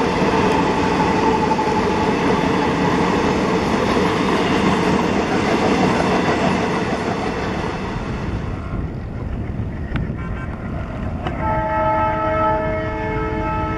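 Passenger coaches rolling past on jointed track, their wheel and rail noise fading out as the train moves away about eight seconds in. Near the end, after a sharp click, the horn of the WDG 3A ALCO diesel locomotives sounds a steady multi-note blast.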